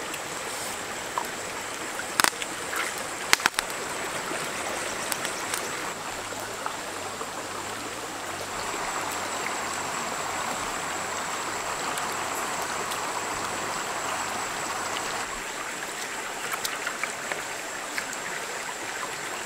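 Shallow stream running steadily over rocks, with a few sharp clicks in the first few seconds.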